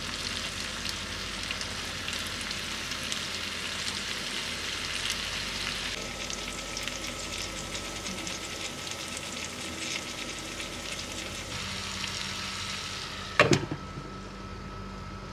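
Eggplant slices and tomatoes sizzling and crackling in a frying pan. About thirteen seconds in, a glass lid clanks down onto the pan with a short ring, and the sizzling goes quieter and duller under the lid.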